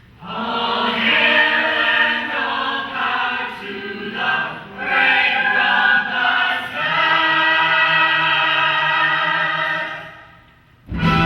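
Cast chorus of a stage musical singing together in harmony. It ends on a long held chord that cuts off suddenly about ten seconds in.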